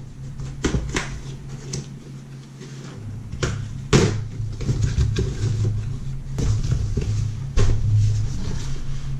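Long cardboard shipping box being handled and pried open: scattered knocks, taps and scrapes of cardboard, the sharpest about four seconds in and another near eight seconds, over a steady low hum.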